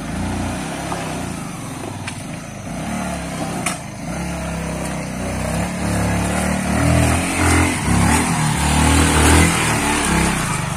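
Yamaha R15 motorcycle's single-cylinder engine revving up and down under load as the bike is ridden through mud and loose rock, getting louder in the second half.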